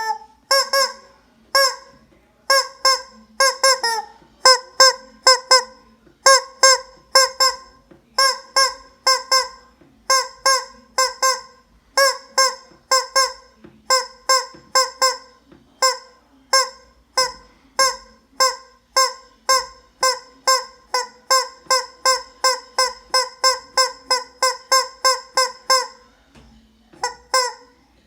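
Rubber squeeze-toy chicken squeezed over and over, giving short honking squawks that are all the same pitch, about two a second in runs with short breaks and a pause near the end.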